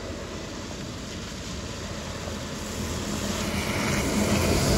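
Scania coach bus approaching on a wet road, its engine and tyre hiss growing steadily louder as it comes up close.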